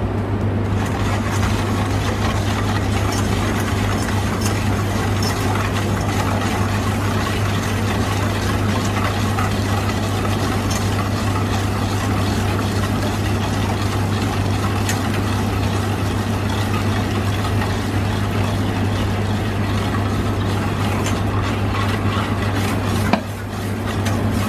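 Wire whisk beating egg yolks and sugar in a stainless steel bowl while hot milk is poured in to temper the custard, with light scattered clicks of the whisk against the metal. Under it runs a steady low machine hum, the loudest thing heard.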